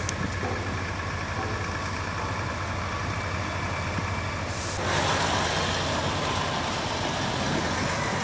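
Volvo FH lorry's diesel engine running as it pulls slowly forward with a fairground ride on its trailer. A steady hiss joins about halfway through and the sound grows louder as the lorry draws level and passes close by.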